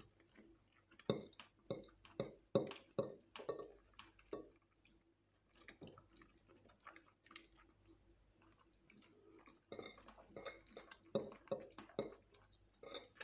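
Quiet eating sounds of spaghetti and fried chicken: short wet mouth clicks and chewing smacks with light clinks of forks on plates. They come thickly for the first few seconds, thin out in the middle, and pick up again from about ten seconds in.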